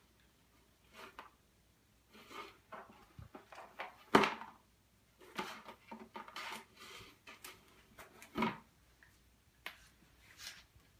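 Small cardboard box scraped and knocked about as two Bengal cats push their heads and paws inside it after treats: irregular rustles, scrapes and knocks, the loudest knock about four seconds in.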